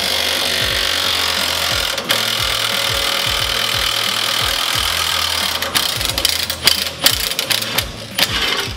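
A power tool running steadily for about five seconds, then a scatter of sharp metallic clicks and knocks from tools on the car's underside, with background music and its steady beat underneath.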